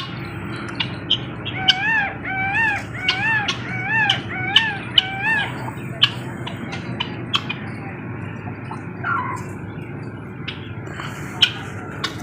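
Birds calling: starting about a second and a half in, one bird gives six evenly spaced, arching calls in a row. Short sharp chirps are scattered throughout.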